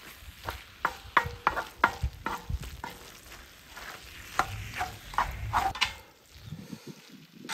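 Wooden spatula scraping and tapping against a wide black griddle pan as rice is stir-fried, with a light sizzle. About a dozen short strokes, then it goes quieter near the end.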